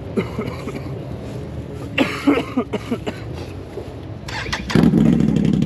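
Can-Am Renegade 1000 XMR's V-twin engine, fitted with a loud SLG exhaust, running low at first; about a second before the end it comes up suddenly to a loud, steady run.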